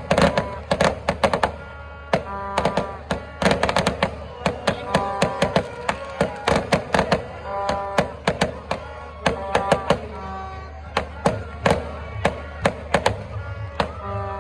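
Aerial fireworks going off: a rapid, irregular string of sharp bangs and crackles, several a second, with music playing alongside.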